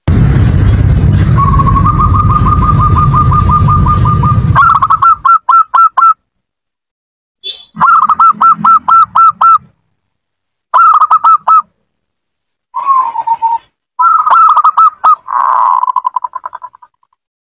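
Zebra dove (perkutut) singing in repeated bursts of quick staccato coos, each burst about a second long with short silences between. For the first four and a half seconds a loud rushing noise with a low rumble lies under the song.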